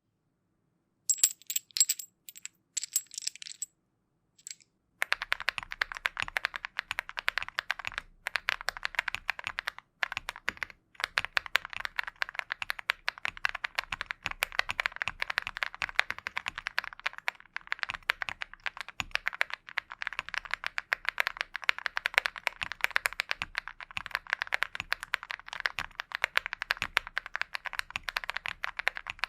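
Mechanical keyboard typing on a Lucky65 with KTT Coconut Latte switches: a few sharp, separate clicks with a high ringing tone in the first few seconds, then steady, fast typing with many keystrokes a second from about five seconds in.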